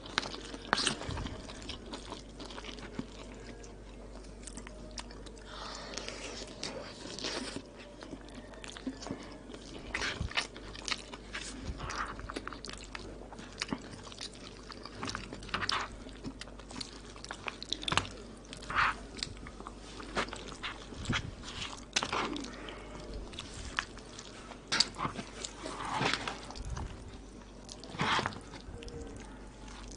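Close-up eating sounds of koshari: wet chewing of the rice, pasta and lentils, with irregular crunches and mouth clicks all through.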